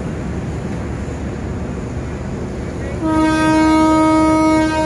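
Horn of a Hitachi 4520 diesel-electric locomotive sounding about three seconds in: one long blast, a brief break, then a short second blast. Before it there is a steady low rumble.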